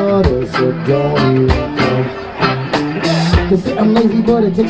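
Live reggae band playing an instrumental passage on electric guitars, bass, drum kit and saxophone, with steady drum hits and a cymbal crash about three seconds in.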